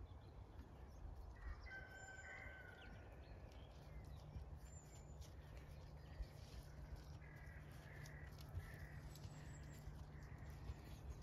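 Quiet open-air ambience with a low wind rumble on the microphone. Faint distant animal calls come a little over a second in, and a string of short repeated calls follows past the middle.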